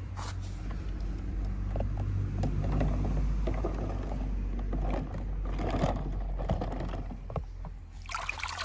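A steady low machine hum with scattered light clicks. Near the end, a short splash of water as a toy car is lifted out of the tub.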